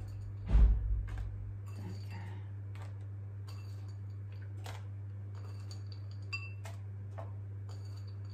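Light, irregular clicks of chocolate chips and fingertips against a plate as the chips are picked up and sprinkled by hand, with one dull thump about half a second in. A low steady hum runs underneath.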